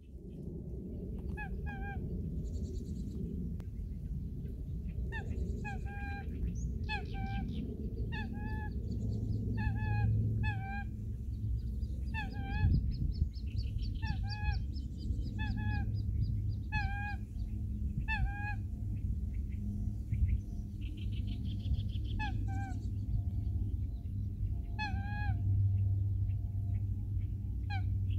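Eurasian coot giving short nasal honking calls over and over, about one a second with pauses, from a second or so in until near the end. Faster, higher trills come twice, and a low steady rumble of wind runs underneath.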